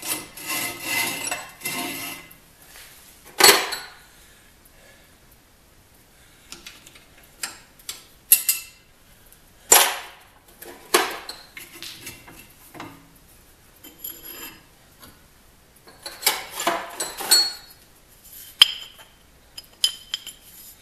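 Steel parts clinking, knocking and scraping as they are handled and fitted together, in clusters with a few sharp knocks, and brief metallic ringing near the end.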